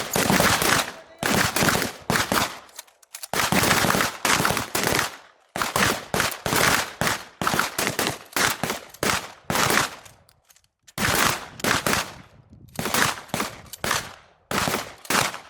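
A firing line of shotguns, pump-action and semi-automatic, shooting three rounds each in a ragged, overlapping string of shots. The blasts come in crowded clusters with short lulls between, tailing off near the end.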